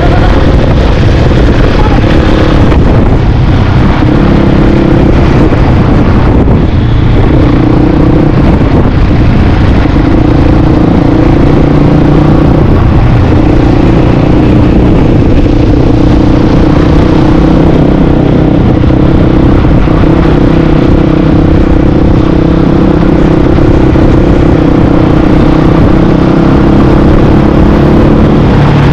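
Dirt bike engine running steadily while riding, its pitch stepping up and down slightly with the throttle, over constant low rumbling noise.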